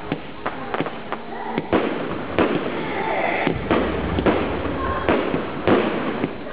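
Aerial fireworks exploding overhead: an irregular series of sharp bangs and crackles, several a second at times.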